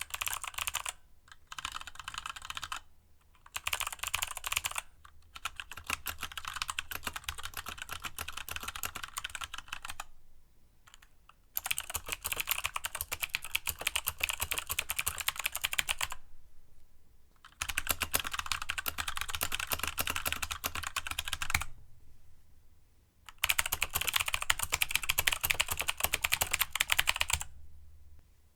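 Fast typing on a Keychron K2 mechanical keyboard with Gateron switches, a dense run of key clicks in bursts broken by short pauses of about a second.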